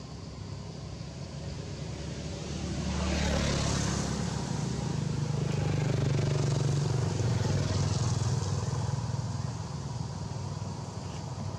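Motorbike engine running past: a low, steady engine hum that grows louder about three seconds in, stays loud through the middle and eases off toward the end.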